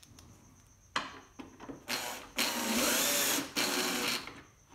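Cordless drill-driver driving in a screw that holds a washing machine's control panel and dispenser housing. It runs steadily for about a second, then gives a shorter second burst as the screw seats, after a couple of light clicks from setting the bit on the screw.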